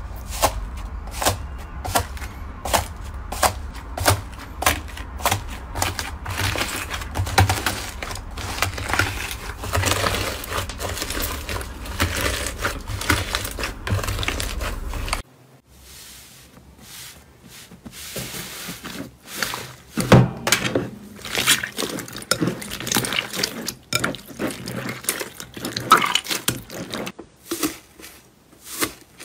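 Foam-bead slime (floam) pressed and kneaded by hand in a plastic tub, the beads crackling and popping. It starts as regular presses, a little more than one a second, then turns to a denser, continuous crackle over a low hum. About halfway the sound cuts to a quieter stretch of softer slime squishes and scattered pops.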